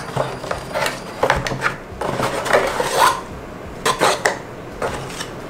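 Handling noise of a plastic power adapter and its cord being lifted out of a molded paper-pulp packing tray and fingers scraping the pulp: irregular clicks, knocks and scrapes.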